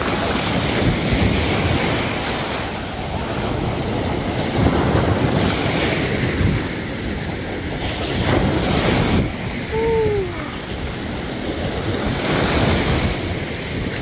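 Small waves washing onto a sandy shore, swelling every few seconds, with wind buffeting the microphone. A brief falling cry sounds about ten seconds in.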